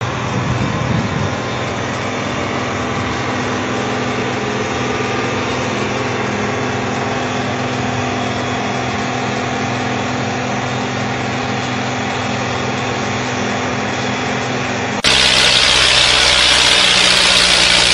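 Caterpillar 320C excavator's diesel engine running steadily with a level drone while it pours out heavy smoke. About fifteen seconds in it cuts abruptly to a louder tractor engine working hard.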